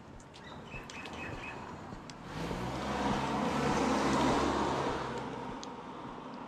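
A car driving past on the street: tyre noise and a low engine hum swell up about two seconds in, are loudest around four seconds, then fade away.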